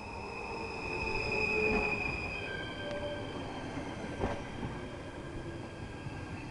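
Electric passenger train running past the platform, with a high whine that steps down in pitch about two and a half seconds in, under a steady rumble of wheels on rail. A sharp knock of wheels over the track comes about four seconds in.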